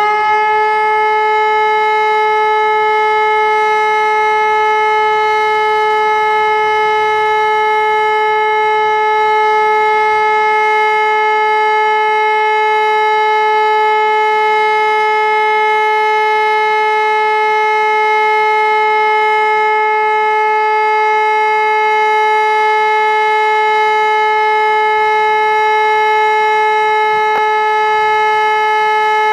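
Civil-defence siren sounding the all-clear signal: one loud, continuous tone held at a constant pitch, with no rise and fall.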